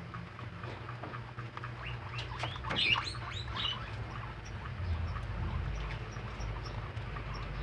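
Baby rabbits munching fresh vegetables: a steady run of small, quick crunching clicks, thickest and loudest for about a second around three seconds in.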